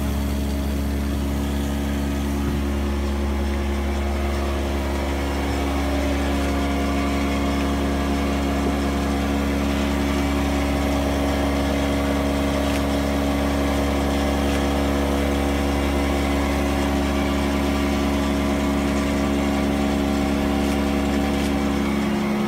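Steady machinery drone around a standing steam locomotive: a deep constant hum under several steady tones, unchanging throughout.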